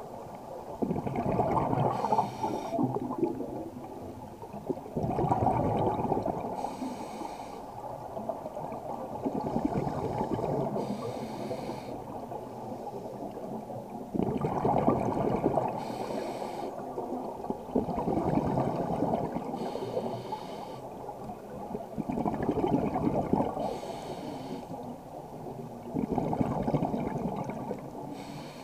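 Scuba regulator breathing heard underwater. Exhaled bubbles gurgle and rumble in surges about every four seconds, and each breath cycle carries a brief higher hiss from the regulator.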